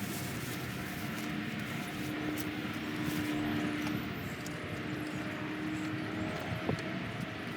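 Distant engine drone: a steady hum with faint held tones, and one sharp click near the end.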